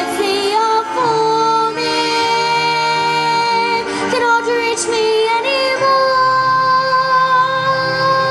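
Music with a high sung voice holding long notes over a sustained accompaniment, the pitch stepping between held notes.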